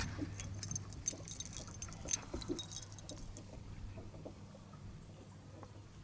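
Small metal objects jingling and clicking, busiest in the first three seconds and then thinning out, over a steady low hum.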